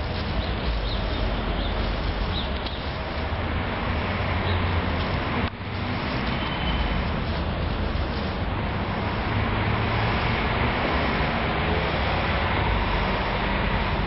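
Steady outdoor noise: the low rumble of traffic on a nearby road, mixed with wind on the microphone. It breaks off briefly about five and a half seconds in.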